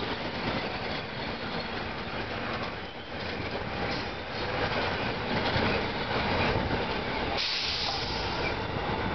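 Metro-North M3A electric multiple-unit train pulling out and running past on the tracks: steady wheel-on-rail noise, with a brief hiss near the end as the last car goes by.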